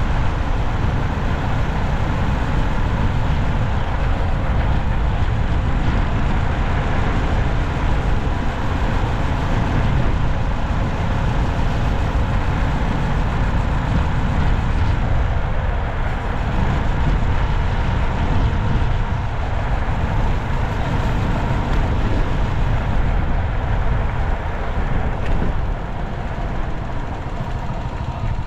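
Steady noise of a vehicle driving along a city street: a deep, continuous rumble of engine and tyres, with no distinct events.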